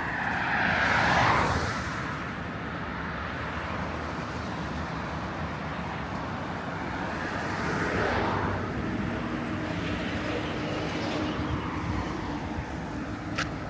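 Cars passing on a street, each a swell of tyre and engine noise rising and fading, one about a second in and another about eight seconds in, over a steady traffic hum. A short sharp click comes near the end.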